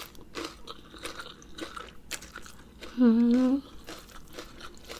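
Chewing and wet mouth noises of someone eating a spicy Thai rice-noodle salad, with a short hummed "mmm" of enjoyment about three seconds in, lasting about half a second and louder than the rest.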